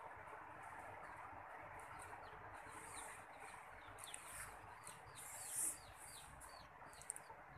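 A small bird chirping a string of short, quick, falling notes over a faint steady outdoor hiss, with a brief louder burst of noise about five and a half seconds in.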